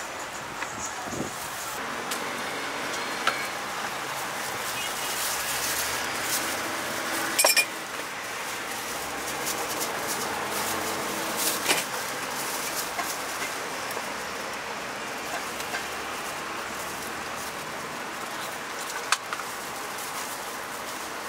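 Busy street ambience with a steady wash of traffic noise, broken by a few sharp clinks and knocks; the loudest clink rings briefly about seven seconds in.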